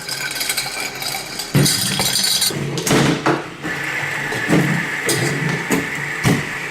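A toy spinner rattling and clicking as it is handled and spun, with a steady high whir that sets in about halfway through.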